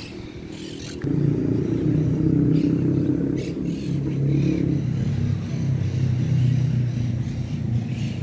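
A motor vehicle engine running close by. It comes in suddenly about a second in and holds a low, steady hum that wavers slightly in pitch.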